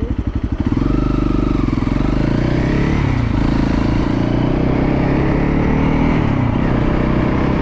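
Motorcycle engine idling with an even pulsing beat, then picking up revs less than a second in and running on steadily under way. The engine note dips briefly about three seconds in and comes back up.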